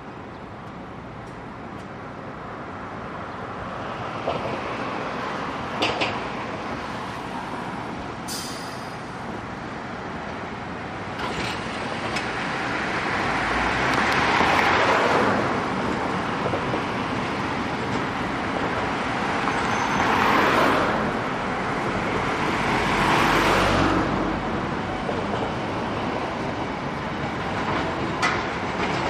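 Manyōsen De 7050 streetcar pulling away and running down the street, its nose-suspended (tsurikake) traction motors growling and building up over the first dozen seconds. Passing road traffic mixes in with it.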